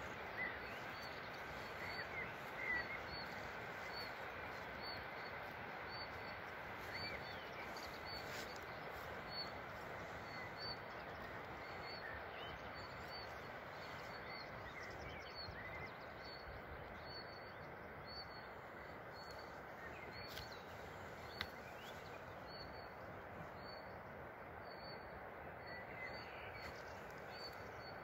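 Outdoor birdsong over a steady rushing hiss: one bird repeats a short high note about once a second, other birds chirp now and then in the first few seconds, and there is a single sharp click past the middle.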